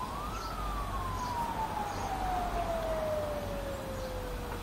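A siren wailing once: its pitch reaches its peak about half a second in, then falls slowly and steadily over the next four seconds.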